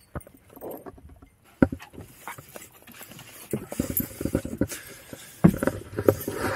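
Footsteps and dogs' claws clattering on a wooden deck, a quick run of knocks with a few louder thumps.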